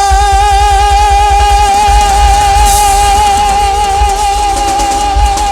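Live band music: one long high note held with a slight vibrato over a heavy bass beat.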